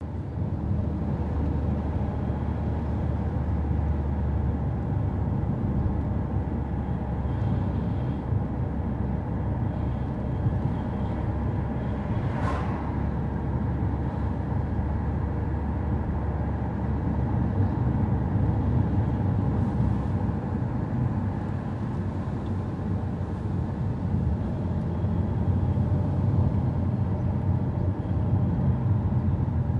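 A car driving, its engine and tyres making a steady low rumble. About twelve seconds in there is one brief sharp click.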